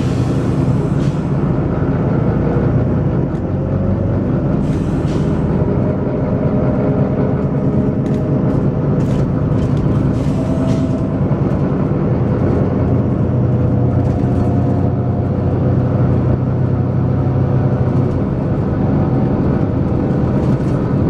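Volvo B9TL double-decker bus's six-cylinder diesel engine running hard with a loud, gruff thrash, its note rising and falling with speed. Several short air hisses from the bus's air system cut in over it.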